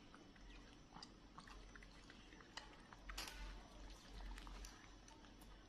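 Faint sipping and sucking with small clicks from young monkeys drinking juice from plastic sippy bottles, with a brief louder slurp about three seconds in.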